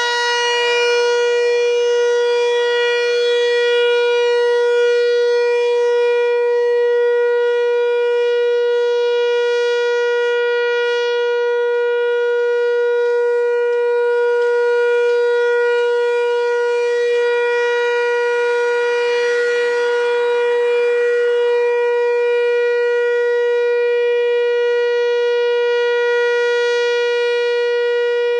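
Whelen WPS-4004 electronic outdoor warning siren sounding its steady Alert signal, one unwavering pitch with many overtones. The upper overtones swell and fade, brightest about two-thirds of the way through, as the partly rotating speaker head sweeps past.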